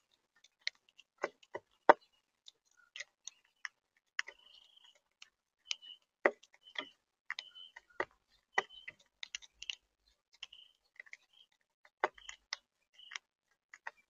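Monk parakeets foraging in a seed-and-nut feeder: irregular sharp clicks and taps of beaks cracking shells and knocking against the tray, a few louder ones about two seconds in.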